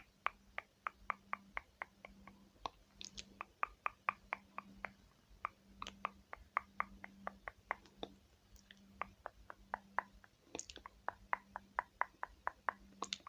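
Eyebrow-shaping tool clicking rapidly and evenly as the brows are shaped, about four crisp clicks a second with a short pause about two thirds of the way through, over a faint low hum.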